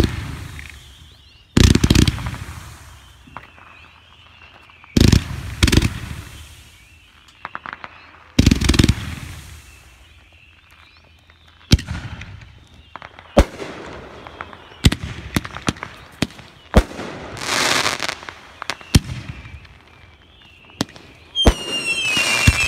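Consumer fireworks, mortar shells and Roman candles, launching and bursting: heavy booms a few seconds apart at first, then a quicker run of sharper cracks and pops. Near the end, several whistling effects sound at once, each sliding in pitch.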